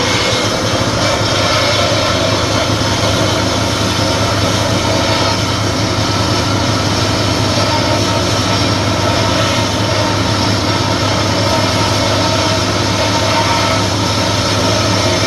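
Homemade belt sander driven by an old treadmill motor, running at full speed with a steel disc pressed hard into the belt, grinding metal: a steady motor hum under a continuous grinding rasp.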